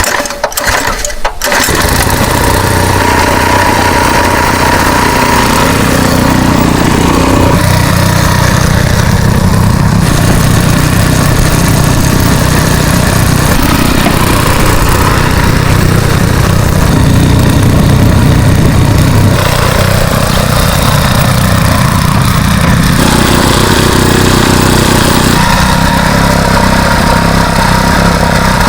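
Motoblock (walk-behind tractor) engine catching about a second and a half in, then running steadily.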